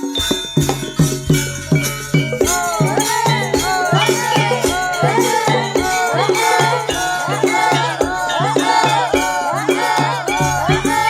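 Javanese gamelan ensemble playing a brisk, rhythmic piece on a steady quick beat.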